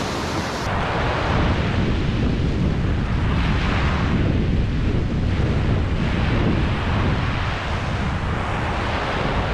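Small waves breaking and washing up a sandy beach, surging about every two to three seconds, with wind rumbling on the microphone.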